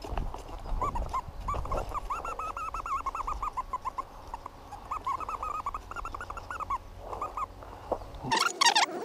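XP Deus metal detector giving a rapid, jumpy run of short warbling target tones as the coil sweeps over a target, a small piece mixing iron and non-ferrous metal. A louder, higher burst of tones comes near the end.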